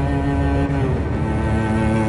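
Dramatic background score of sustained low bowed strings, moving to a new chord about a second in.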